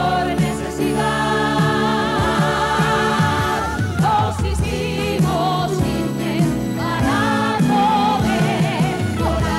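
Several voices singing long held notes in harmony over a band accompaniment, part of a live stage musical number.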